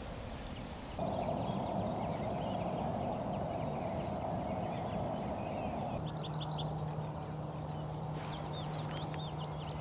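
Black grouse bubbling in a continuous low murmur, starting abruptly about a second in and stopping about 6 s in. After that a steady low hum remains, with small songbirds singing short runs of quick repeated high notes.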